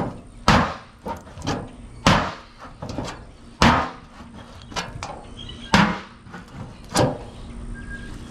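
APOC Trench Bowie knife stabbed point-first, again and again, into a thin steel panel (about 18-gauge, like a car hood) resting on a wooden stump: a series of sharp metallic strikes at uneven intervals, about six hard ones, the last about seven seconds in. It is a durability test of the blade's tip.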